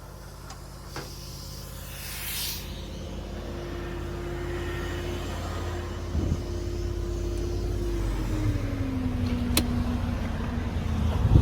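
The truck's 6.0 L gas V8 running with its VMAC air compressor switched on, growing steadily louder as it goes. A steady tone in the sound drops slightly in pitch a little after eight seconds in.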